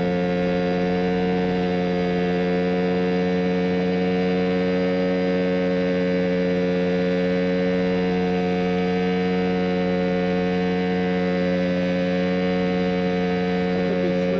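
Mosquito Air ultralight helicopter's engine and rotor running steadily at hover power, heard from the pilot's seat as an even, loud drone with a low buzzing pitch that does not change.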